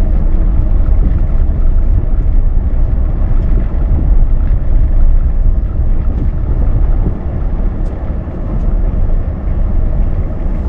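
Pickup truck's engine running, heard from inside the cab as a steady low rumble that eases slightly about seven seconds in.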